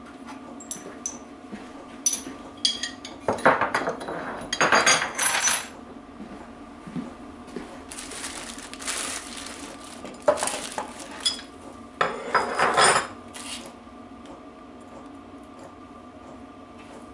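Metal hand tools and small steel parts clinking and rattling against each other in several short bursts, as tools and a circlip are picked out for fitting. A faint steady hum runs underneath.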